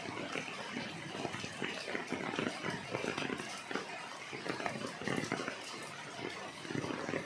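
Rain falling on large golden pothos leaves: a steady, dense patter of many irregular drop hits.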